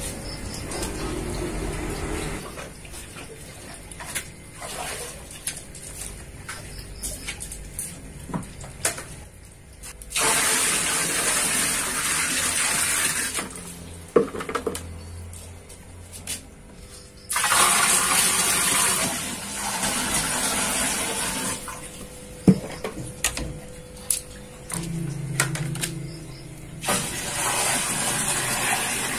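Buckets of water poured into a glass aquarium, splashing and gushing in three long pours about ten seconds in, seventeen seconds in and near the end. Between pours, quieter water sloshing and a few knocks of the plastic bucket.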